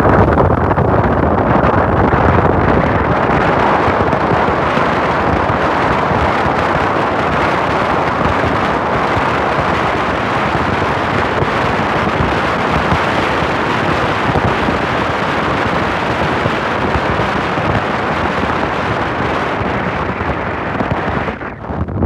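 Loud, steady wind rushing over a phone's microphone in a moving car, mixed with the car's road noise. It drops away sharply near the end.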